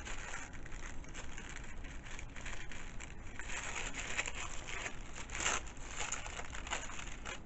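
Faint, irregular rustling and crinkling of paper with light taps, as paper cards are handled and wrapped. A slightly louder rustle comes about five and a half seconds in.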